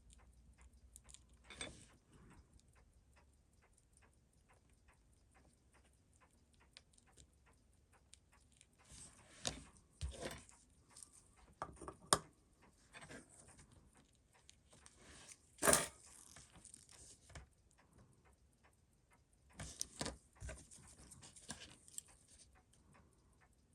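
Faint, regular ticking, with small sharp clicks and taps of watchmaking tools and parts being handled at a workbench, loudest in a few short clusters about ten, twelve, sixteen and twenty seconds in.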